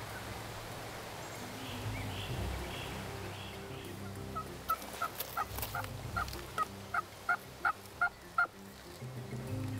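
A turkey calling in a series of about a dozen short notes, roughly three a second, growing louder through the second half.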